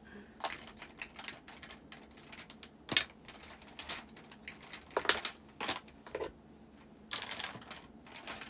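Irregular light tapping and clicking, like typing by hand, with a few louder clicks about three and five seconds in and a quick run of taps near the end.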